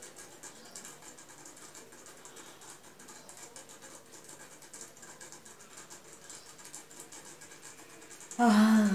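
Faint rustling, then near the end a woman's loud voiced yawn, brief, its pitch falling.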